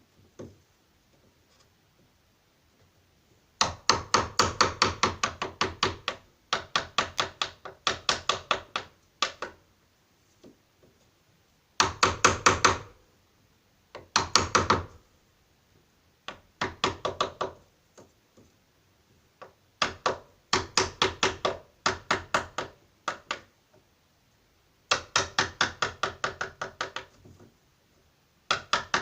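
Rapid runs of hammer blows on a wood chisel, about five a second, in bursts of a few seconds with short pauses. The chisel is cutting a recess into the wooden door so the lock's plate will sit flush.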